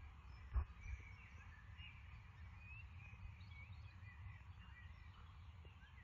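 Outdoor ambience of birds chirping and calling in short rising and falling notes over a low rumble of wind, with one dull thump about half a second in.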